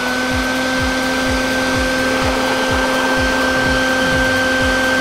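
Shop vac running steadily at full speed, a constant motor whine over rushing air, its exhaust blowing on a small test wind turbine. A low pulsing repeats underneath about two to three times a second.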